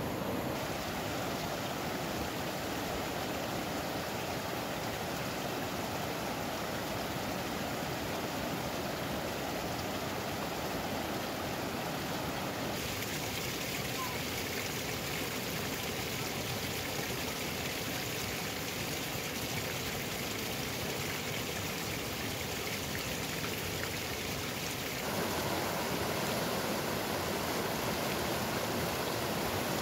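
A fast, shallow mountain river rushing over rocks: a steady, unbroken rush of water. Its tone changes about halfway through, and it gets louder a few seconds before the end.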